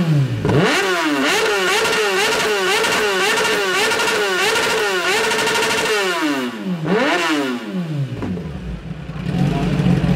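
Superbike engine revved hard while standing: quick blips, then held high with rapid throttle pulses, another blip about seven seconds in, then dropping back to a steady idle.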